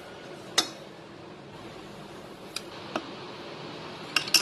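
Sharp clicks and knocks of a hand-operated plastic dry-fruit chopper being handled and its cup fitted into the base: one sharp click about half a second in, two lighter ones later, and a quick run of clicks near the end, over a steady background hum.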